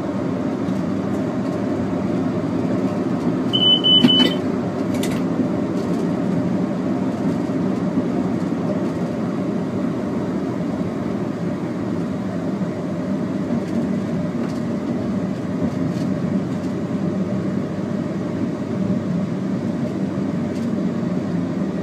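Steady running noise inside the cab of an Intercity 125 diesel train moving along the track. A short high beep sounds about four seconds in.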